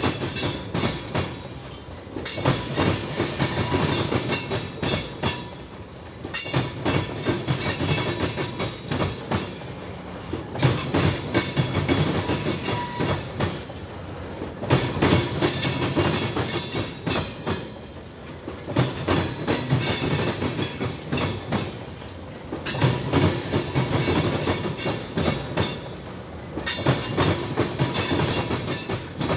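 Loaded crude oil tank cars rolling past, their steel wheels clattering over the rail diamond where the line crosses the CSX tracks. The clacks come in loud groups about every four seconds, one group as each car's trucks pass, with quieter rolling noise between.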